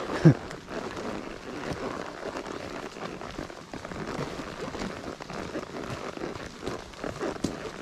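Horses moving along a trail: a steady, irregular crackle of hooves and brush, with one short loud sound just after the start.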